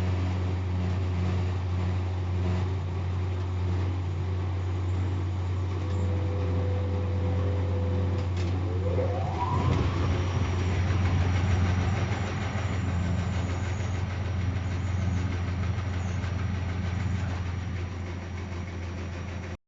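Privileg 810 SE washing machine running with a steady low hum. About nine seconds in, its motor whines up in pitch as it speeds up.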